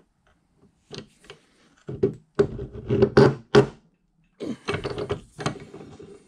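Hand arbor press forcing a bearing and housing onto a Bridgeport variable-speed disc pulley through a wooden block: a few sharp knocks, then two runs of dense knocking and clunking, the first about two seconds in, the second about four and a half seconds in.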